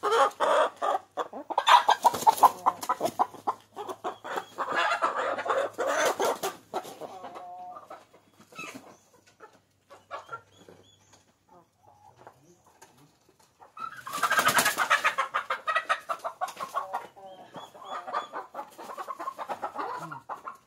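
Hybrid chickens squawking and clucking loudly as they are caught and handled. There are two loud spells: the first several seconds, and again about two-thirds of the way through, with quieter clucking in between.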